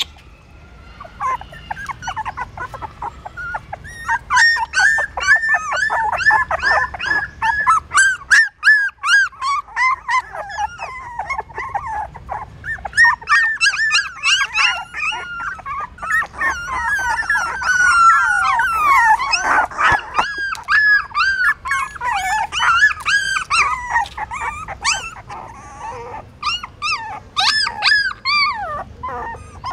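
A litter of very young puppies whimpering and squealing: many short, high-pitched cries overlapping almost without a break, with a brief lull about eight seconds in.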